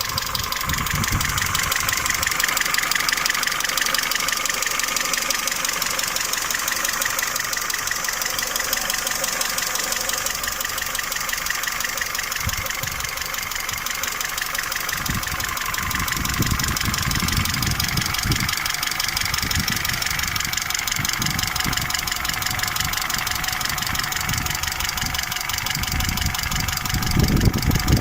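Peugeot 307's 2.0-litre EW10J4 petrol four-cylinder running at idle with a fast, steady knocking from the camshafts, caused by worn camshaft bearing seats and journals. Low rumbling bumps come and go in the second half.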